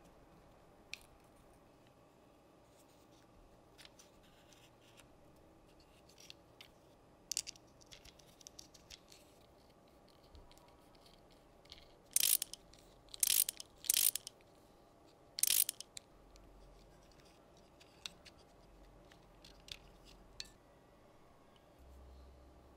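Small laser-cut plywood model parts clicking and tapping as they are handled and fitted together, then four short scratchy grinding bursts from a small screwdriver turning a screw into the wooden model.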